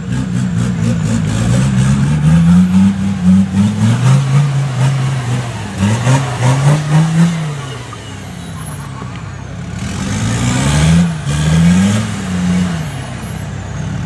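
Land Rover Defender's Td5 five-cylinder turbodiesel revving hard under load as it climbs a steep rocky slope, engine speed rising and falling in quick repeated bursts of throttle. About eight seconds in it eases off, then revs up twice more.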